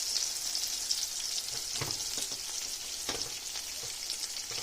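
Green tomato slices frying in hot oil in a pan: a steady high sizzle with fine crackling. Two short knocks, about two and three seconds in.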